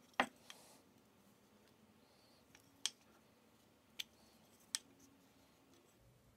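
Four sharp clicks, the first the loudest, from a brass-fenced marking gauge knocking against a birch strip as it is handled.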